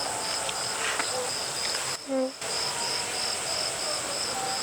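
A cricket chirping steadily in a high, even pulse, about three to four chirps a second, with a few faint clicks and a brief murmur of a voice a little after two seconds in.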